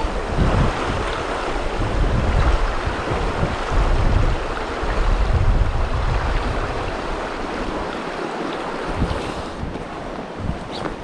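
Mountain stream water rushing steadily, with gusts of wind rumbling on the microphone that ease off near the end.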